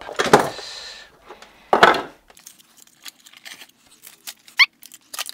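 Handling noises as a plastic pushbutton control box is set down and moved on a wooden bench. There are a few clicks and knocks, a brief scraping rustle about two seconds in, and a short rising squeak near the end.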